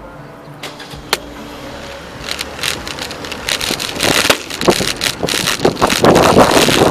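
Bicycle rattling as it rolls and picks up speed, with wind on the microphone growing steadily louder. There are two sharp clicks about a second in.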